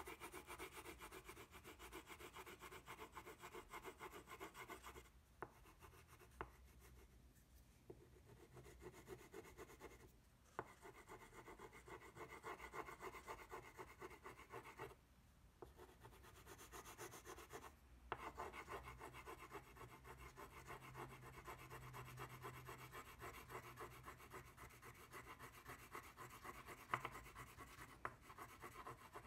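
Faint scratching of a Crayola wax crayon rubbed quickly back and forth on paper in shading strokes, broken by several short pauses.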